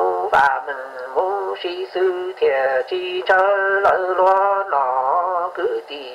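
A voice singing a slow song in phrases of long, held notes that bend and waver in pitch.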